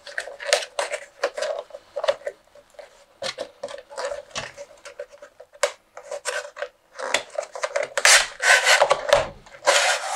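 Cardboard packaging being handled: a printed cardboard sleeve is slid and rubbed off a white inner box, with irregular scraping and rustling strokes. The strokes grow longer and louder near the end as the sleeve comes free.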